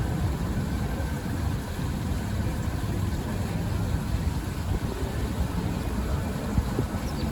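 Steady low rumble of city background noise: a dense, even haze with no clear calls or knocks standing out.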